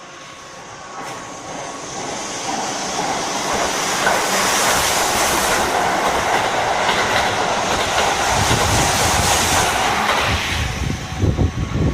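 A Keihan electric train approaching and passing close by, its wheels clattering over the rail joints. The sound builds over the first few seconds and stays loud, then drops near the end into low uneven thumps.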